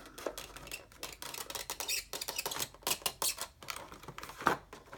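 Clear plastic insert of a Funko Pop box crackling and clicking as it is worked out of the cardboard packaging, with one sharper click near the end.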